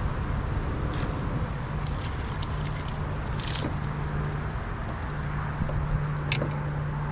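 Wind rumbling on the microphone with a steady low hum, and a few light clicks or knocks.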